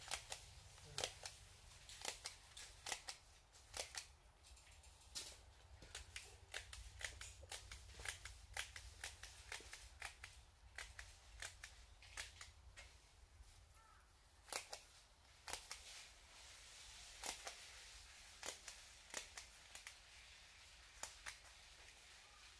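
Irregular sharp clicks and crackles, one or two a second, from plastic greenhouse film being handled and fastened overhead by hand.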